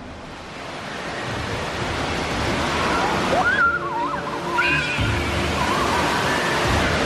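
Giant tipping water bucket pouring a torrent onto a splash deck: a rushing roar of falling water that builds over the first few seconds and grows heavier about five seconds in. Children shriek high over it around the middle.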